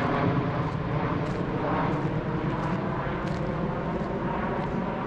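Airplane flying overhead: a steady engine rumble that slowly fades away.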